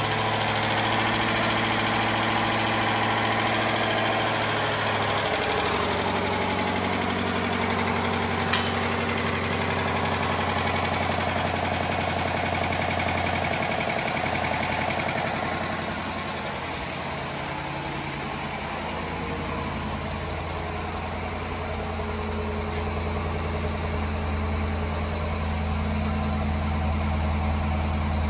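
A 2012 Dodge Durango's 5.7 L HEMI V8 idling steadily, first at the open engine bay and later at the tailpipe. There is one brief click about eight seconds in.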